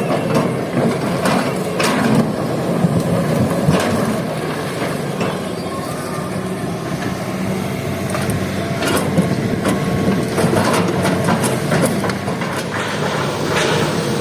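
Hitachi excavator's diesel engine running under load, with irregular knocks and clatter of stones striking the steel bed of a dump truck as it is loaded, bunching up in the second half.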